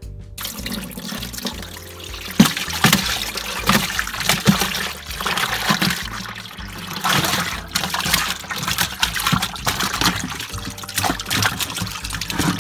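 Water splashing and sloshing in a plastic cooler holding freshly caught crappie, in an irregular run of splashes throughout, with faint background music underneath.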